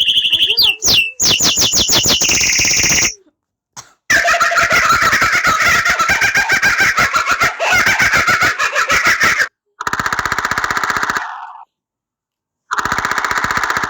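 A run of short animal-sound ringtones played one after another from a phone app. Each is a fast, rapidly pulsing call that stops abruptly, with brief silences between them: about four clips in all, the second and longest running about five seconds.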